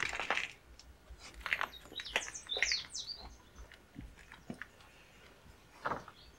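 A few short high chirps of small birds, clustered two to three seconds in, among scattered soft clicks and rustles of handling.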